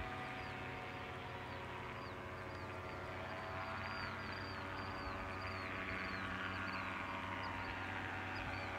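Powered paragliders' engines and propellers droning steadily overhead, the pitch drifting slightly as one passes. Rapid high chirps repeat throughout.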